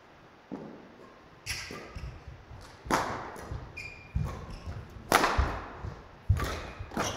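Badminton rally: a shuttlecock struck back and forth by rackets, sharp hits about once every second, ringing in the sports hall. Thuds from the players' feet and a short squeak come between the hits.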